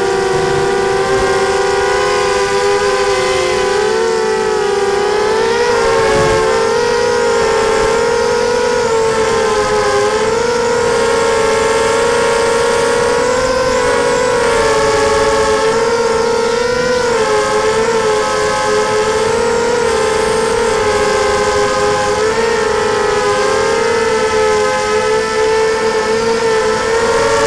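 FPV racing quadcopter's brushless motors and propellers whining, heard from the onboard camera; several close pitches rise and fall together as the throttle changes.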